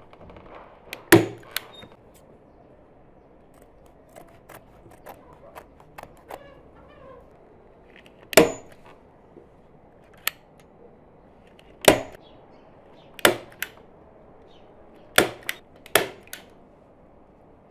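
Hand-held manual staple gun firing staples through upholstery fabric into a chair seat: sharp snaps, six or seven loud ones a second or a few seconds apart, with fainter clicks between.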